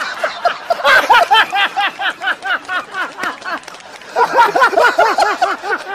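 Loud, hearty laughter in rapid ha-ha pulses, about five a second, in two long bouts with a short break around four seconds in.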